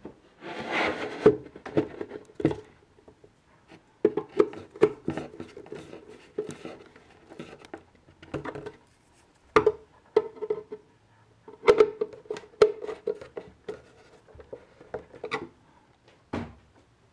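Hand screwdriver turning metal connector screws in wooden furniture panels: irregular runs of small clicks and scrapes, with a few sharp wooden knocks as the boards are handled.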